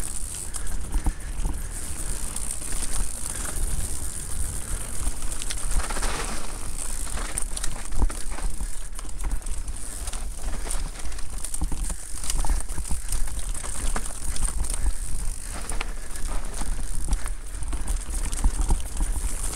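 Electric mountain bike ridden down a rough dirt trail: a dense run of clicks and clatter from tyres, chain and frame over rocks and roots. Under it runs a steady low rumble of wind on the microphone and a thin high hiss.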